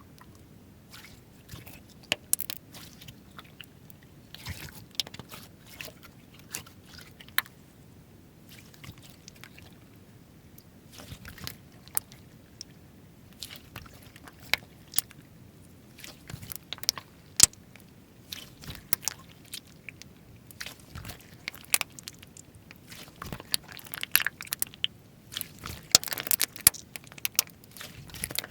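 Slime being squeezed and pressed by hand, making many sharp clicks and crackles that come thicker near the end.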